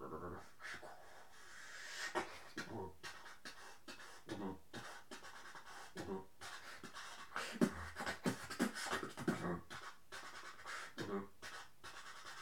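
Drumstep-style beatboxing into a handheld microphone: fast vocal kick, snare and hi-hat hits mixed with low bass sounds that slide down in pitch.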